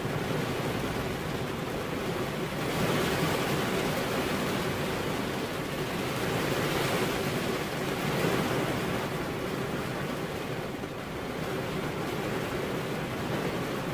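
Heavy rain falling steadily, an even hiss that swells a little a few seconds in and again about halfway through, then eases slightly.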